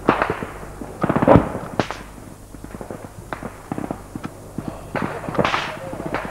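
Gunfire: scattered rifle shots with a short rapid burst of automatic fire about a second in, the loudest moment.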